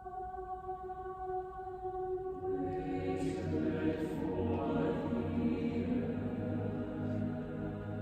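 Mixed choir with orchestra, singing a soft held chord that swells into fuller, louder harmony as more voices come in about two and a half seconds in, with a brief sung 's' near the middle, in a cathedral's reverberant acoustic.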